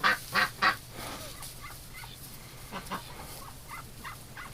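Domestic waterfowl calling: a quick run of three loud calls in the first second, then softer scattered calls from the flock.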